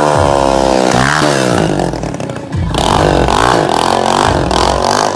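Motorcycle engine revving, its pitch sliding down and then up, with music and a deep bass going on underneath.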